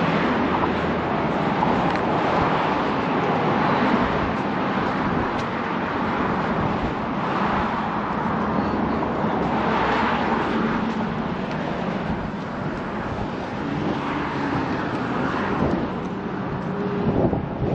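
Steady outdoor rushing noise of road traffic with wind on the microphone, swelling a few times as vehicles pass.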